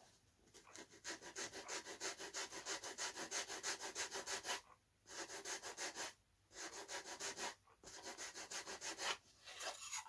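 Quick back-and-forth rubbing strokes of a sanding tool on the edge of a Depron foam part, about four or five strokes a second in four runs with short pauses between them, shaping a shallow bevel.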